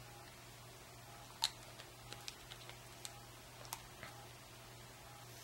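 Light clicks and taps of small metal rebuildable-atomizer parts being handled and set down on a table: one sharp click about a second and a half in, then several fainter ones.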